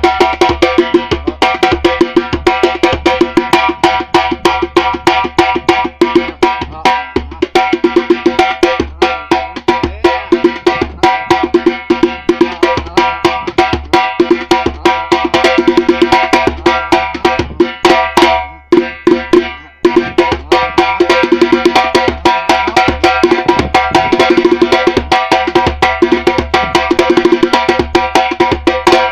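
Fast drum percussion: a rapid run of sharp stick-like clicks over ringing drum tones, thinning to a short break about two-thirds of the way through before the dense playing resumes.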